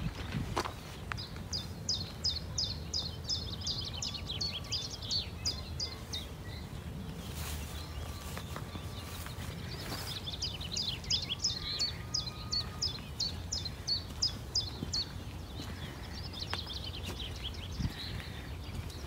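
A songbird singing outdoors: two long phrases of quick, high, repeated notes at about three a second, with a shorter, fainter phrase near the end, over a low, steady background rumble.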